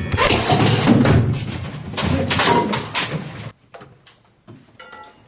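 Police tactical team forcing entry through an apartment door: a loud, noisy din of banging and clatter that cuts off sharply about three and a half seconds in, followed by a few quieter knocks.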